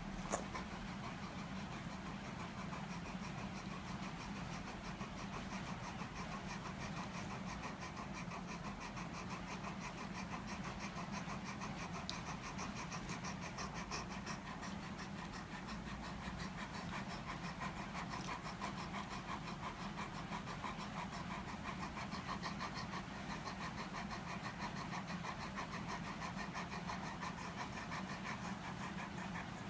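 Great Pyrenees dog panting steadily and rapidly, over the steady low hum of electric fans. A single sharp click comes about half a second in.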